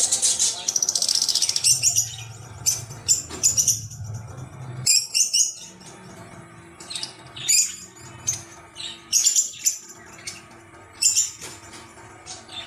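A series of short, high-pitched chirps and squeaks: a rapid trill for about the first second and a half, then irregular separate bursts through the rest.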